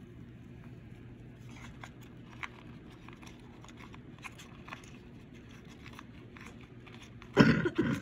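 Faint clicks and rustles of paper being handled, then near the end a loud smoker's cough in two bursts close together.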